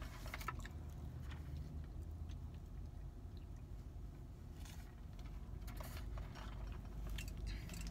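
Soft chewing of tacos with a few brief crackles and a sip through a drinking straw, over a steady low hum inside a car.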